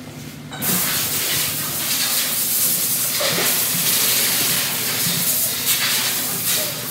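Clear plastic wrapping crinkling and rustling loudly as it is pulled and bunched off a new electric skateboard, starting about half a second in.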